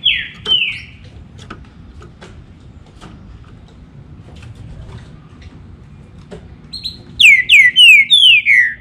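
Green-winged saltator (trinca-ferro) singing: two short whistled notes, each falling in pitch, right at the start, then about seven seconds in a loud phrase of five slurred notes, each sliding down. Faint clicks in between.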